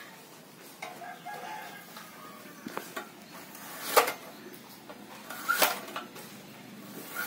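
Hand-operated lever vegetable cutter with a high-carbon steel blade chopping through chayote: a light click about two and a half seconds in, then two sharp chops about four and five and a half seconds in.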